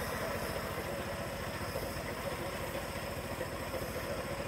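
An engine running steadily at idle with a fast, even beat, under the steady air hiss of a gravity-feed spray gun.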